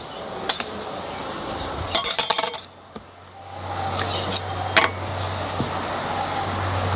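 A spatula clinking and scraping against a pan while working stiff cooked dough: a few sharp clinks, with a quick cluster of them about two seconds in.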